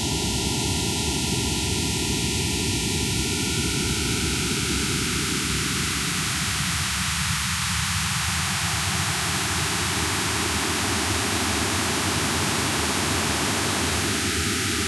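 Steady wall of static-like electronic noise in a noise-music piece. Its tone shifts slowly as bands of the noise are filtered out and let back in.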